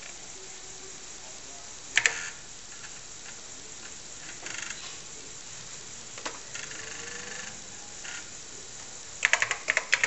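Floppy disk drive clicking and whirring as a TRS-80 Model I boots LDOS from a double density disk, with a sharp click about two seconds in. Near the end comes a quick run of keystrokes on the TRS-80 Model I keyboard.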